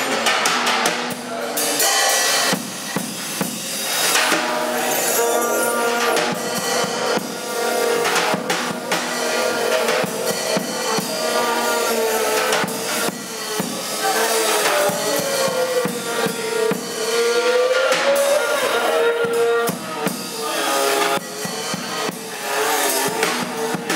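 Live instrumental ensemble music: violin, accordion and upright bass over drums. About halfway through, a melody line slides down and back up.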